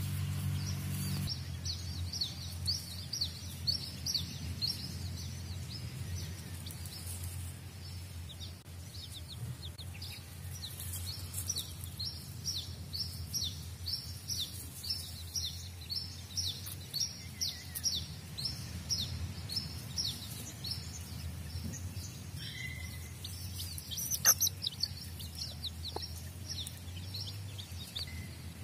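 Young chicks peeping continuously, a stream of short high falling peeps several a second, over a low steady hum. Near the end there is a single sharp click.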